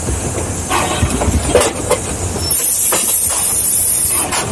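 Mason Bogie 0-6-4T steam tank locomotive running along the track, heard from inside the cab: a steady low rumble with irregular beats from the locomotive. About two and a half seconds in, a steady high steam hiss starts and runs for almost two seconds.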